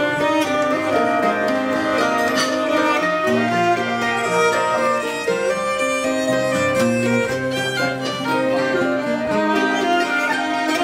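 Acoustic folk ensemble playing an instrumental passage with no singing: fiddle and flute carry the melody in long held notes over acoustic guitar and mandolin.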